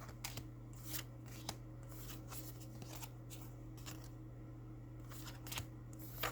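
Pokémon trading cards being handled and set down one after another: a few soft, scattered slaps and rustles, the last one near the end a little louder, over a steady low hum.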